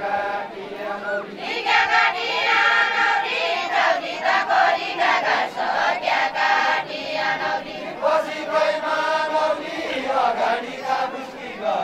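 A group of women singing a Deuda folk song together, unaccompanied, in long drawn-out phrases with short pauses between them.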